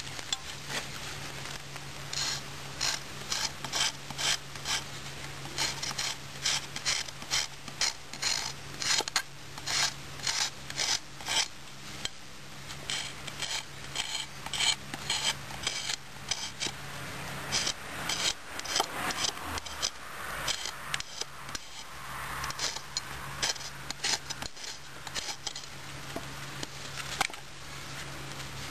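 ST3-F survival knife scraping and rasping against wood in repeated strokes, irregular and about two a second, fewer near the end.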